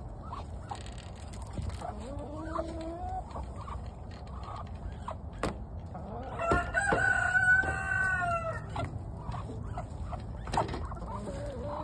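Domestic chickens clucking and calling, with short calls in the first few seconds. Then one long, drawn-out call starts about six and a half seconds in and lasts around two seconds; it is the loudest sound.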